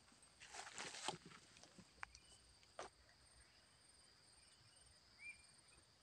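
Near silence with a faint steady insect hum. About half a second in there is a short rustle of grass and brush, then two soft clicks and a brief high chirp near the end.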